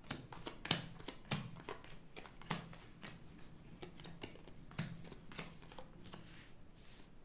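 Playing cards being dealt one by one onto a table mat: a run of soft, irregular snaps and taps as cards are laid down and slid into place, with sharper snaps just under a second in, about two and a half seconds in, and near five seconds.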